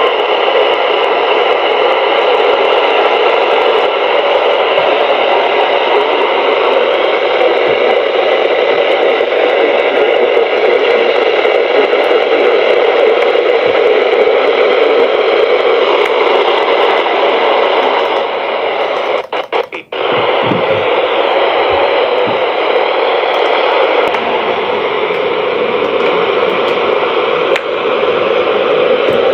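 Steady radio static hiss from a weather-band FM receiver with no clear audio, broken by a few clicks and a brief dropout about two-thirds of the way through before the hiss resumes.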